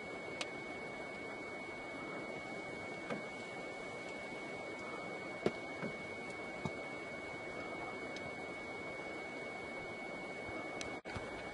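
A steady high-pitched tone over a constant hiss, with a few sharp clicks scattered irregularly through it. The sound drops out for an instant near the end.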